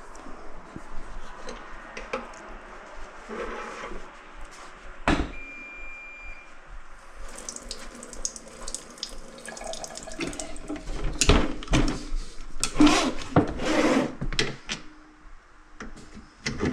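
Kitchen faucet running water into a clogged sink, growing fuller about a third of the way in. Several loud knocks and clunks come partway through.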